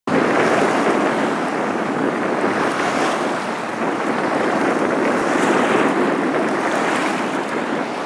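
Small sea waves breaking and washing up a sandy beach, a steady rushing wash of surf.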